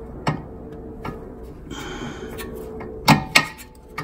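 Scattered metal clicks and knocks as the ball stud of a new outer tie rod end is worked into a VW Mk3's steering knuckle arm, with two sharp knocks close together about three seconds in, over a faint steady hum.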